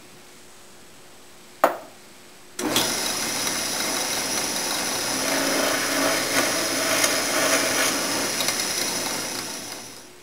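A sharp knock, then a drill press starts and runs steadily while its bit bores a dowel hole into a curly-maple-veneered door. The sound fades away near the end.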